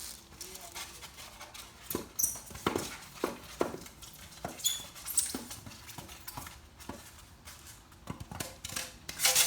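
Packing material being worked loose and pulled out from under a table saw: irregular knocks and clicks with a few short high squeaks, the loudest knock near the end.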